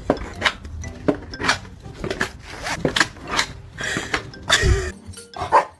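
Hard objects clattering and clinking in a run of sharp knocks, about two or three a second, with a louder rush of noise about four and a half seconds in.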